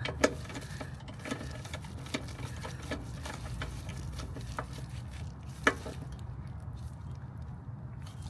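Scattered light clicks and taps of hand work on the skid steer loader's new oil filter, over a steady low hum. Two sharper knocks stand out, one just after the start and one about five and a half seconds in.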